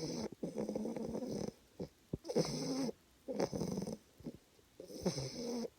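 Snoring in slow, regular breaths. Each breath in and out is a snore lasting about half a second to a second, with short quiet gaps between them.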